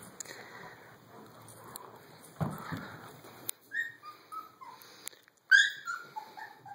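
Dog whining in a series of short, high whimpers that begin about halfway through, the loudest one about two-thirds of the way in. Before them come rustling and a scuffle of movement.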